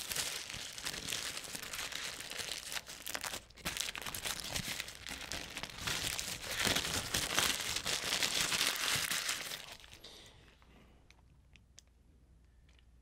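Paper wrapper of a McDonald's cheeseburger crinkling and tearing as it is peeled open by hand. The rustling stops about ten seconds in, leaving only faint small ticks.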